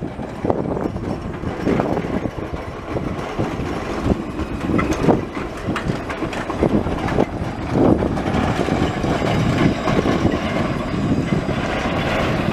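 Alstom Citadis low-floor tram passing close by, its wheels rumbling on the rails with a run of irregular clacks and knocks.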